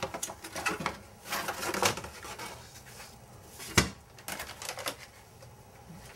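Clear plastic clamshell packaging crackling and clicking as a small steel portable gun safe is worked out of it, with one sharp knock a little over halfway through.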